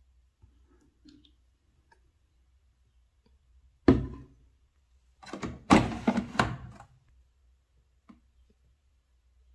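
Plastic handling sounds: a single dull thunk about four seconds in, then about a second and a half of clustered knocks and rattles, and a small click near the end, as a detergent bottle, a plastic dosing cap and a washing machine's detergent drawer are handled.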